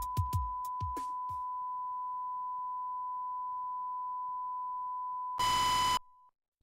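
The last few drum hits of a hip-hop beat die away over a steady high-pitched electronic beep-like tone that holds for about five seconds. Near the end a louder, harsher buzzing tone sounds for about half a second, then the sound cuts off.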